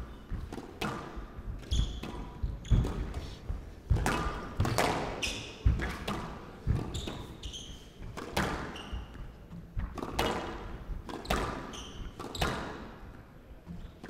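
Squash rally in play: the rubber ball is struck by rackets and smacks off the front wall and glass side walls in a quick, irregular run of sharp knocks. Short squeaks from players' shoes on the wooden court floor come between the knocks.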